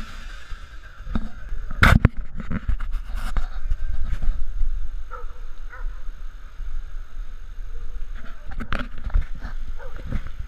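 Wind rumbling on an action camera's microphone, with knocks and rubbing as the camera is handled, the loudest knock about two seconds in. Faint short calls in the distance around the middle.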